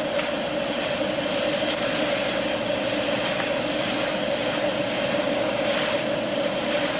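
Compressed-air blow gun hissing steadily as it blows concrete dust out of a freshly drilled anchor hole, with a steady mid-pitched tone under the hiss.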